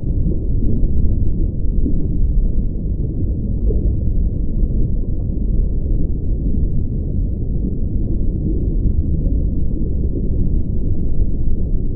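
A steady, muffled low rumble with nothing in the upper range, an underwater-style ambience.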